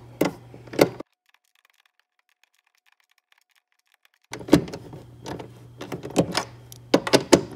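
Socket wrench ratchet clicking as a tail light mounting nut is run onto its stud, in irregular clicks over a low steady hum. The sound drops out to complete silence for about three seconds after the first second.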